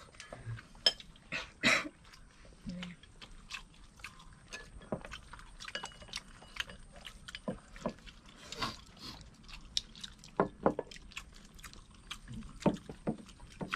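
People eating a rice meal: chopsticks and spoons tapping against bowls in scattered light clicks, with chewing.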